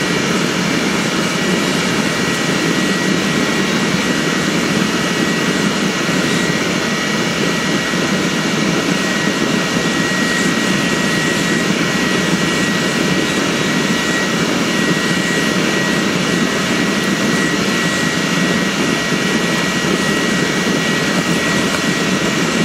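Steady roar of a homemade drip-fed waste-oil burner firing a forge, with a thin high whine held on one note throughout.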